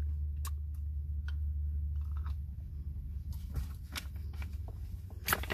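A hard lollipop being sucked and bitten in the mouth: scattered small clicks and crunches over the steady low hum of a car interior.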